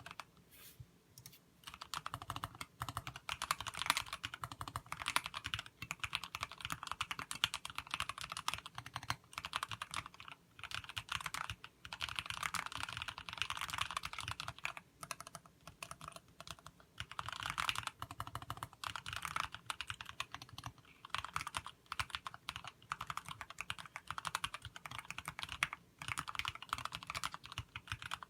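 Continuous typing on a TX60 mechanical keyboard with linear Kailh Box Black switches lubed with Krytox 105 and MT3-profile keycaps: rapid keystrokes in long runs, broken by a few brief pauses.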